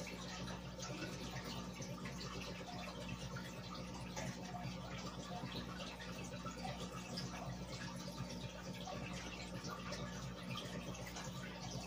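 Aquarium air bubbling: a steady stream of fine bubbles rising through the water and fizzing and popping at the surface, over a steady low hum.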